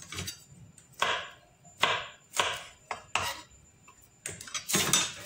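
Kitchen work sounds: about seven irregular knocks and clatters, roughly a second apart, of garlic and utensils being handled at the counter.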